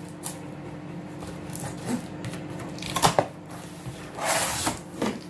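Unboxing handling noise from a microwave's packaging: a few sharp knocks about three seconds in, then a rustling scrape of packaging material and another knock near the end, over a steady low hum.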